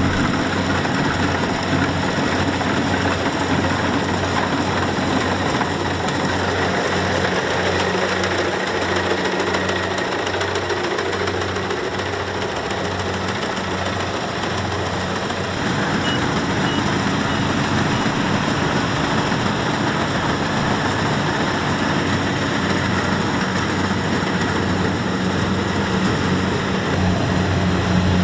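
Kubota DC-70X rice combine harvester's diesel engine and machinery running steadily under load, a constant low drone that eases slightly in the middle and picks up again a little past halfway.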